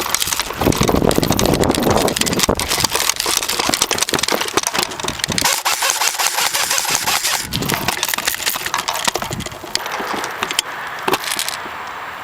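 AK74 airsoft rifle firing in rapid full-auto bursts, a dense run of clicks over the gearbox's motor buzz, close to the camera mounted on it. The firing thins out near the end.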